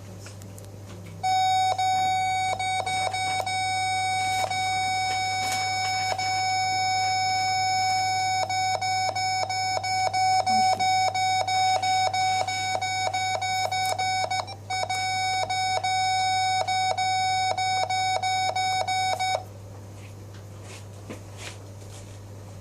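A steady, loud electronic alarm tone sounds continuously for about eighteen seconds. It breaks off briefly once and flutters in quick regular dips in its later half.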